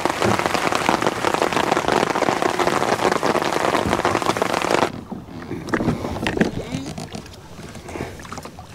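Steady rain pattering close by on a beach umbrella overhead and on the water around a kayak. It cuts off abruptly about five seconds in, leaving a much quieter stretch of scattered small knocks and water sounds.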